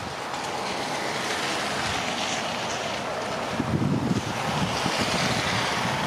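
Wind blowing, with gusts buffeting the microphone from a little past halfway.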